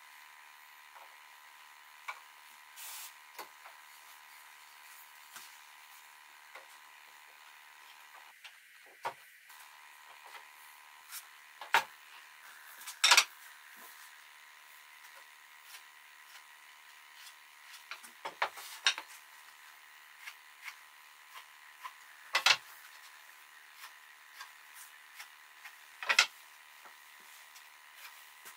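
Scattered knocks and clunks of wooden parts being handled, set down and fitted together while a table's legs and aprons are assembled. There are about a dozen sharp hits, the loudest about halfway through and near the end, over a faint steady hum.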